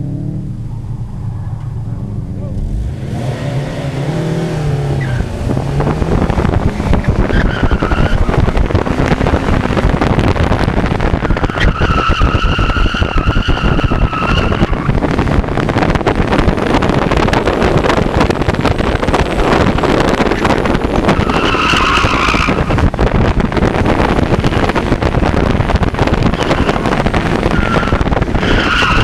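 Stock Honda S2000 at the start line, then launching hard about three seconds in, its engine revving high, with heavy wind on the microphone and tyre roar. The tyres squeal in the turns, about twelve seconds in, again around twenty-two seconds, and near the end.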